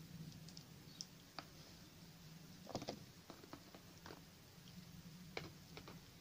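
Faint rustling and clicking of hands pressing and wrapping filler around a wire sculpture armature, with a cluster of louder crinkles about three seconds in and again near the end, over a low steady hum.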